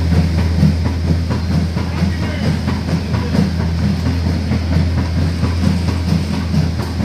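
Heavy machinery engine running steadily: a deep, even hum with a rough, fluttering rumble over it.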